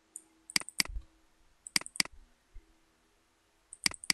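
Computer mouse button clicking: three pairs of sharp clicks, each pair a press and release about a fifth of a second apart.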